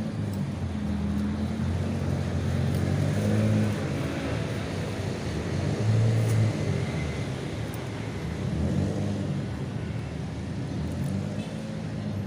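A motor vehicle's engine running, its low hum shifting up and down in pitch, over steady road noise.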